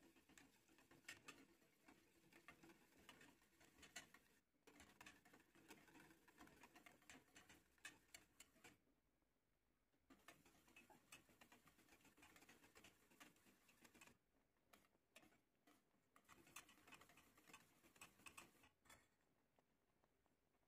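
Faint, quick ticking and light scraping of a wire whisk stirring a custard cream in a stainless steel pot, the wires tapping the pot's side, stopping briefly a couple of times.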